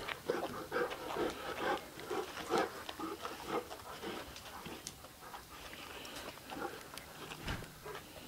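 Dogs panting, short irregular breaths and sniffs in quick succession that are busiest in the first half and thin out later.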